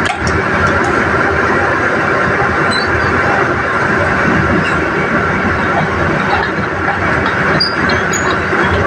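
Kobelco excavator's diesel engine running steadily at a constant, loud level.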